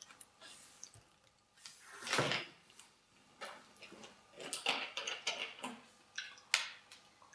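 Drinking from a plastic water bottle: one loud swig with a slosh about two seconds in, then a run of small crackles and clicks from the plastic bottle.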